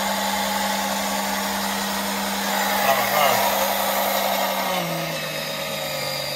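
Battery-powered electric oil extractor pump running with a steady hum, sucking old engine oil up through the dipstick tube; its pitch drops a little about five seconds in.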